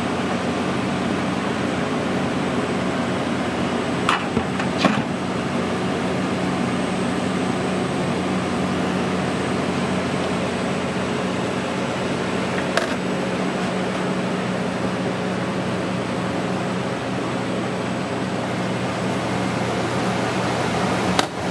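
Steady machine hum of running kitchen equipment, a low drone under an even hiss, with a few short clicks and knocks about four and five seconds in, near the middle and near the end.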